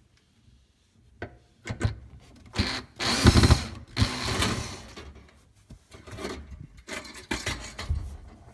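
Tool work with scattered clicks and knocks, and a dense rapid mechanical rattle about three seconds in that lasts over a second, then more clattering near the end.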